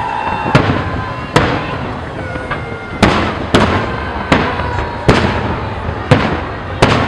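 Aerial fireworks display: shells bursting in sharp bangs at irregular intervals, about nine in the span, each trailing off in a short echo.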